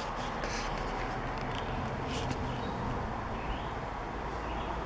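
Steady outdoor background noise with a low hum underneath and a few faint clicks.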